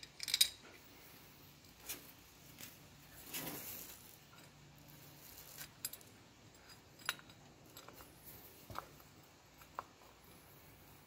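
Scattered small metallic clicks and clinks as the aluminium water pump cover and its bolts are handled and the bolts are started by hand. The loudest cluster of clinks is right at the start, with a brief rustle about three and a half seconds in.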